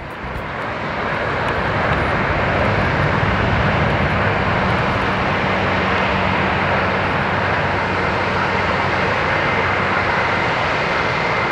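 Boeing 737-900ER's CFM56-7B turbofan engines on final approach and flare: a steady jet rush with a low hum underneath, growing louder over the first couple of seconds and then holding, with a faint thin whine coming in near the end.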